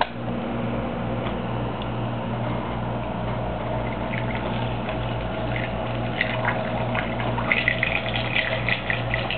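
Homemade water-vortex tornado machine running: its small electric motor hums steadily while the water spins in the bottle. From about four seconds in, bubbling and gurgling water sounds grow busier toward the end.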